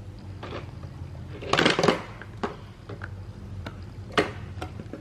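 Plastic toy train track pieces clicking and clattering as they are handled and fitted together, with a louder clatter about one and a half seconds in.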